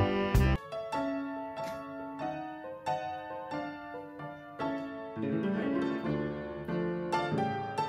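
Background music: a piano playing a light melody of single struck notes, each ringing and fading.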